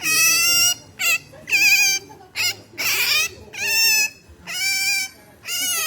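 Pet otter giving a rapid run of high-pitched calls, about eight in a row, some brief and some held about half a second: contented vocalising while being petted.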